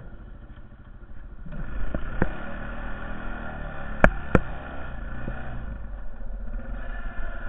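Honda Foreman 450 ATV's single-cylinder engine running while plowing snow, getting louder about a second and a half in. Two sharp knocks about four seconds in, less than half a second apart, are the loudest sounds.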